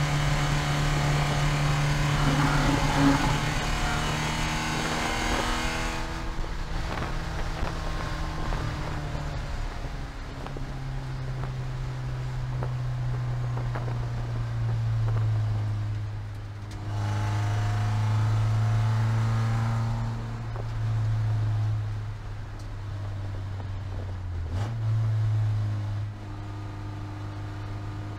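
Porsche 944 Spec race car's four-cylinder engine heard from inside the cabin at part to full throttle. The note drops in pitch as the car slows, with a few brief dips as the driver lifts and changes down from fourth to third gear.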